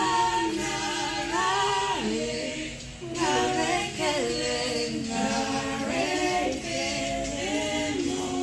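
Background music: layered voices singing an unaccompanied, choir-like passage with no beat, the melody gliding and shifting pitch every second or so.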